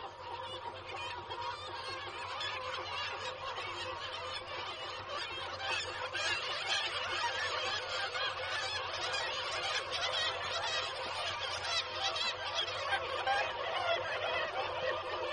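Nesting seabird colony calling continuously, with many black-legged kittiwakes calling over one another in a dense din.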